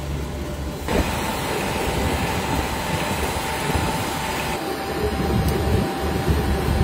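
Macaroni extrusion machine running: a steady mechanical rumble with a low hum and a thin whine. The sound shifts abruptly about a second in and again a little past the middle.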